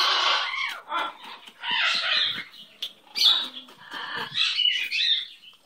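Green-winged macaw vocalizing in about four separate raspy, throaty calls, the longest right at the start, with short gaps between them.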